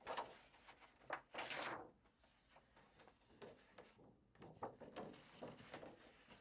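Several faint, separate rustles and soft knocks of paper sheets being handled on a table.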